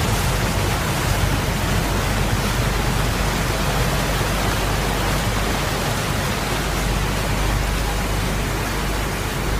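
Steady rush of propeller-churned wake water behind a lake cruise ship's stern, with a low steady engine drone underneath.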